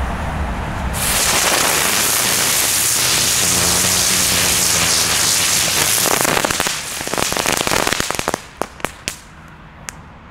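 Two Xplode Storm ground-spinner fireworks hissing loudly as they whirl on asphalt. About six and a half seconds in, the hiss turns into dense crackling, and it ends with a few separate sharp pops.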